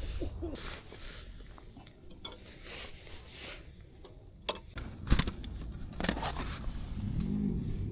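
Light clattering and scraping of objects being handled, with a few sharp knocks, the loudest about five seconds in.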